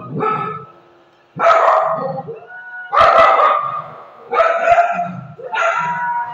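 Shih Tzu howling and barking in about five loud calls, one every second and a half or so, each starting sharply and trailing off.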